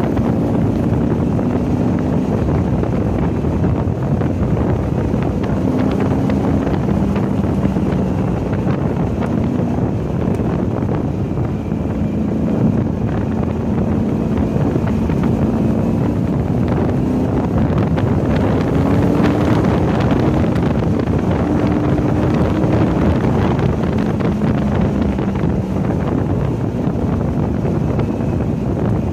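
Car engine running hard on track, its pitch rising and falling again and again with throttle and gear changes. Heavy wind noise on the microphone.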